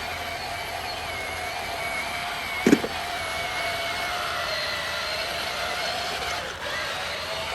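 Small electric motors and plastic gearboxes of a radio-controlled construction machine whining steadily, the pitch wavering slightly as it works. A single sharp knock about three seconds in.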